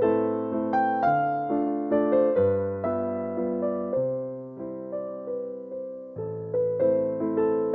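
Background music: an electric piano playing soft chords with notes struck in a steady rhythm, each fading before the next.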